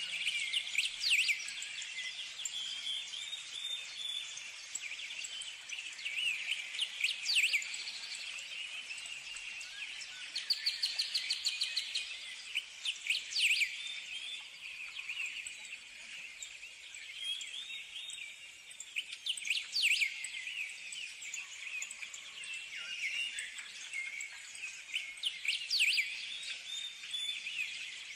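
Birds chirping over a steady background hiss. A burst of chirps comes back about every six seconds, and a rapid trill sounds near the middle.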